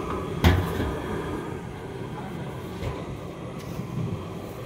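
Steady rumble of street background noise at a roadside food stall, with one sharp knock about half a second in.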